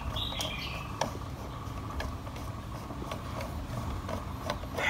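A screwdriver turns a screw into a Stihl 660 chainsaw's engine casing, heard only as a few faint clicks over a steady low hum. A short high chirp sounds near the start.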